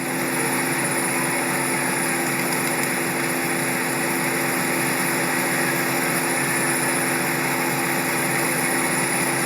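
Steady drone of a running engine, a constant hum over an even rushing noise that swells up just before and then holds level.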